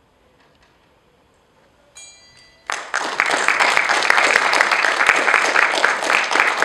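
After a quiet pause, a brief bell-like ring sounds about two seconds in. The audience then breaks into loud, sustained applause.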